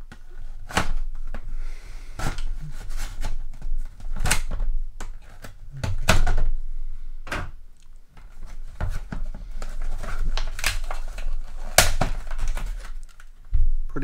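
Stiff, hard plastic blister packaging crackling and rustling as it is bent and worked open by hand, with several sharp snaps.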